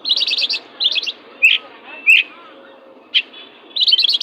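Oriental magpie-robin (kacer) singing a fierce song. Bursts of rapid chattering trills open the song, come again about a second in and return near the end, with single sharp down-slurred notes between them. It is the fired-up song kept as a tutor recording to set other magpie-robins singing.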